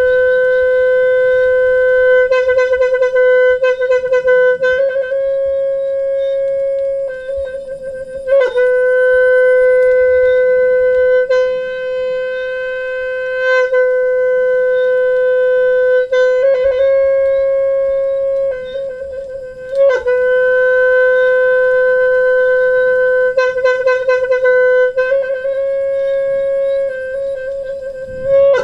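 Khmer horn blown in long notes held on one pitch, broken several times by short wavering trills and by sharp fresh attacks.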